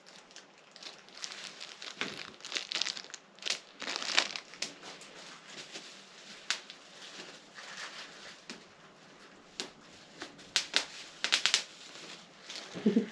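Packaging crinkling and rustling as an item is unwrapped by hand, with irregular crackles and small sharp ticks.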